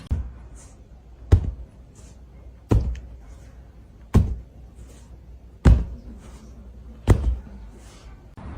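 Six heavy thumps at an even pace, about one every one and a half seconds, each followed by a soft hiss.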